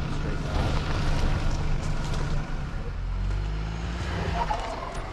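Ford Bronco Sport's engine running at low speed as the SUV crawls over snow and rock, with tyres crunching on the trail. The engine note shifts lower about three seconds in.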